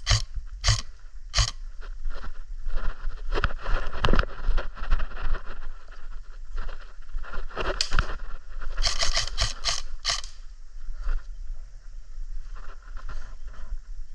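Scraping and rustling of an airsoft player moving with gear, broken by sharp clicks and knocks, with a quick run of louder clicks about nine to ten seconds in.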